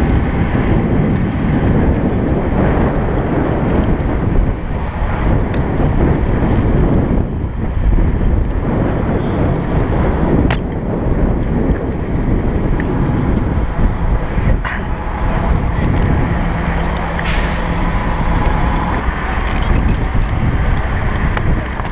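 Wind buffeting an action camera's microphone in a loud, steady rumble, broken by a few sharp knocks.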